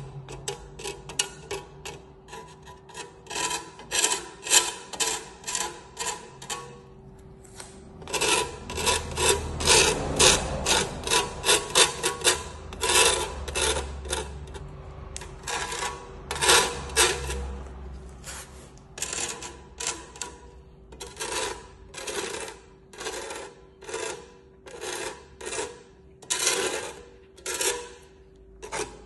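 Notched steel trowel scraping back and forth across the subfloor as it spreads parquet adhesive: a long run of short scraping strokes, about two to three a second, with a couple of brief pauses.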